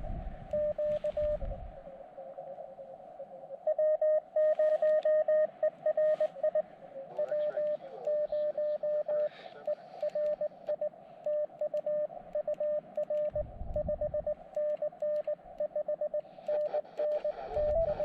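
Morse code (CW) audio from an Elecraft KX2 QRP transceiver: one steady tone keyed on and off in dots and dashes, over a steady band of receiver hiss at the same pitch.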